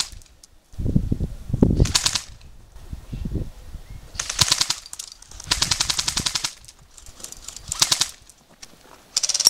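Airsoft guns firing full-auto bursts: a rapid rattle of shots, about five bursts, the one in the middle longest. A low rumble sounds in the first two seconds.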